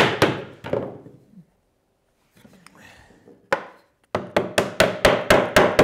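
Wooden mallet tapping a timber half lap joint together: two knocks at the start, then after a pause a single knock and a quick run of about eight taps, four or five a second.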